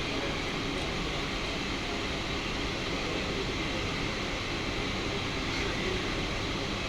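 Steady noise of a running train, even and unbroken, with no distinct beat of wheels over rail joints.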